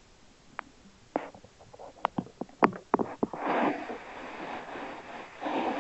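A run of sharp clicks and cracks from a red squirrel gnawing a peanut shell. From about halfway a steady breathy hiss takes over and becomes the loudest sound.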